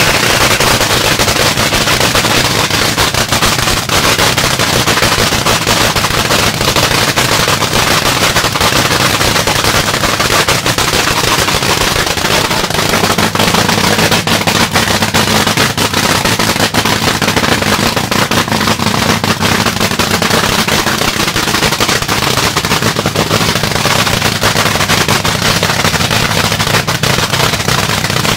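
Supercharged drag-racing engine of the Rat Trap car running at a steady warm-up idle, its open exhaust firing as a rapid, unbroken train of sharp pulses.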